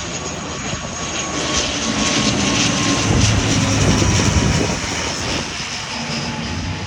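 Airplane passing low overhead on its landing approach, its engine noise swelling to a peak about halfway through and then fading, with a faint high whine that drops slightly in pitch.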